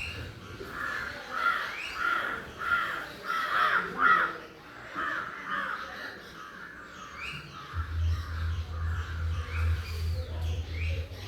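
Crows cawing in a quick run of repeated calls, loudest about four seconds in, then fainter calls carrying on, with short rising chirps from another bird now and then. A low hum comes in after about eight seconds.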